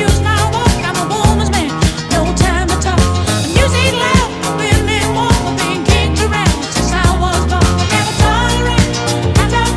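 Upbeat funk-style background music with a steady beat, bass line and a singing voice.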